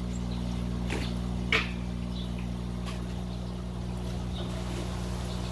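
Water trickling in an aquaponics fish tank over a steady low hum, with a few short sharp clicks; the loudest comes about a second and a half in.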